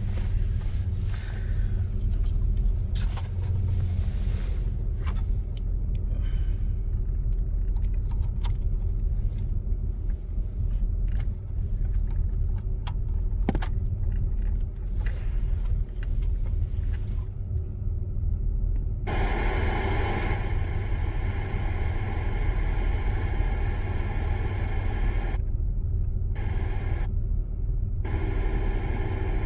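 Steady low rumble with scattered clicks of wiring and parts being handled, then about 19 seconds in a newly installed car radio comes on hissing with static, its antenna not yet connected. The static cuts out briefly twice near the end.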